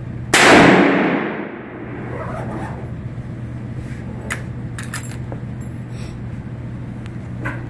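A single shot from a Marlin 336BL lever-action rifle in .30-30 Winchester: a sharp crack that rings out and fades over about a second and a half. A few light clicks follow a few seconds later.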